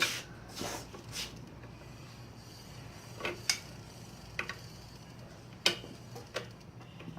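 A few sharp metal clicks and knocks at irregular intervals: a bicycle pedal being handled and fitted to the crank arm.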